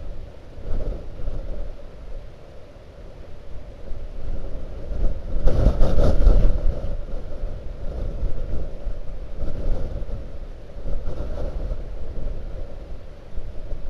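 Blizzard wind gusting against the microphone: a rumbling, buffeting rush that swells and eases, with its strongest gust about halfway through.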